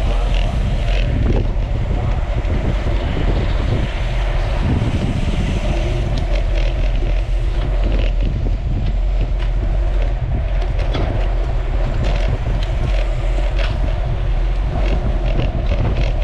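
Steady wind buffeting the microphone, with a strong low rumble and scattered rattling clicks.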